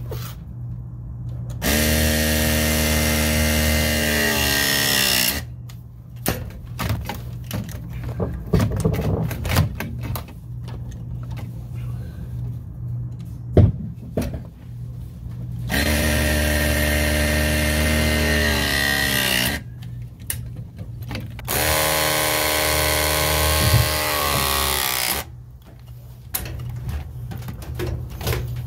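Battery-powered press tool crimping ZoomLock Max press fittings onto 3/8 copper refrigeration line: three press cycles of about three and a half seconds each, the motor's pitch sagging as it loads up. Small clicks and knocks of handling the jaws come between the cycles.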